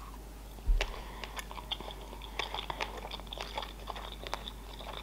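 Close-miked chewing of a sushi roll coated in flying-fish roe (tobiko), heard as many small, irregular wet clicks and crackles. A single low thump comes just under a second in.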